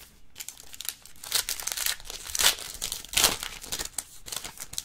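Silver foil wrapper of a Panini Elite Extra Edition baseball card pack being torn open and crinkled by hand. It is a quick run of crinkles and rips, loudest in the middle.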